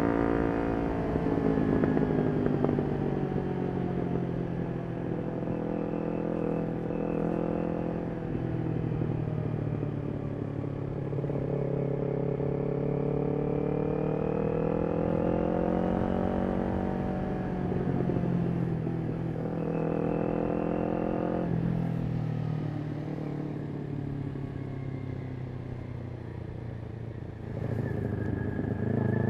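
Kawasaki Ninja 400's parallel-twin engine through a Yoshimura aftermarket exhaust while riding, its revs rising and falling again and again as it pulls through the gears and eases off. Near the end the level dips briefly, then the revs climb sharply.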